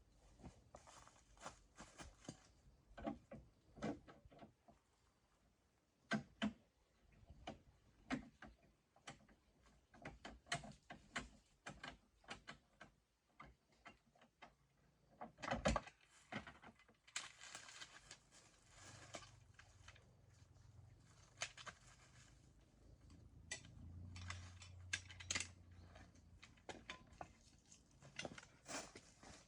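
Faint, scattered clicks and knocks, the loudest about sixteen seconds in.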